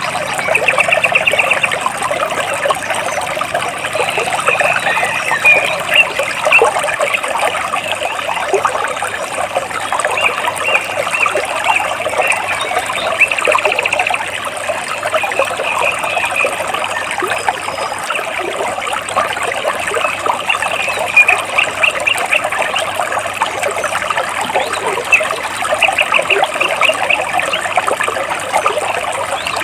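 Water flowing and splashing between rocks in a steady, busy trickle, with birds chirping in short rapid trills every few seconds.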